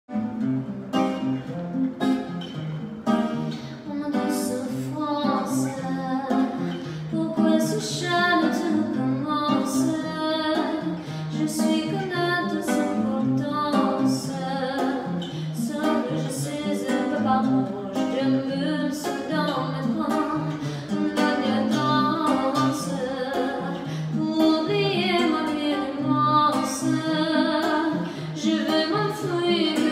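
A woman singing to a plucked acoustic guitar accompaniment.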